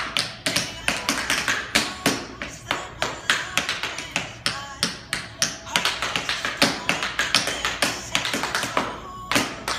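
Tap shoes striking a hard floor in quick rhythmic runs of sharp clicks and heel drops, with a short lull about nine seconds in.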